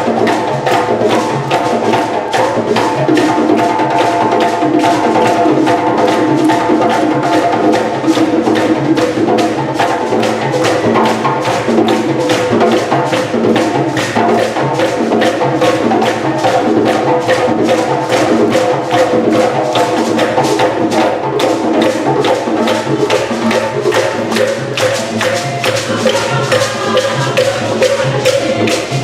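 Music with a steady, busy percussion beat, with sharp wood-block-like strikes over sustained tones.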